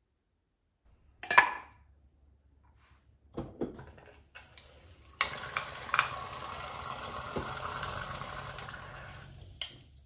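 A sharp, ringing glass clink about a second in, a few knocks and clicks, then sparkling water running from a kitchen tap into a glass for about four seconds, ending with a click.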